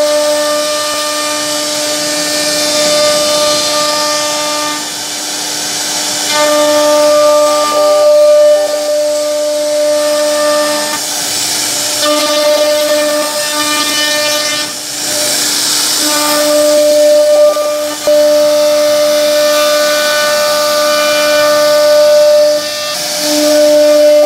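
CNC router spindle whining steadily while its bit carves curved grooves into a wooden panel, with a hiss of cutting wood. The whine breaks off briefly several times.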